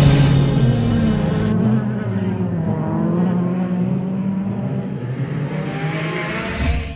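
Stock-car engine running on a dirt race track, its pitch dropping over the first second, then carrying on with a wavering tone that sounds duller from about a second and a half in.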